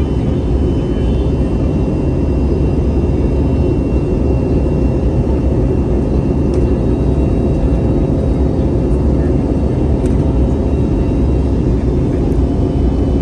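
Steady cabin noise of a jet airliner in flight, heard from a window seat: the turbofan engines running and air rushing past the fuselage, strongest in the low range, with a few faint steady tones in it.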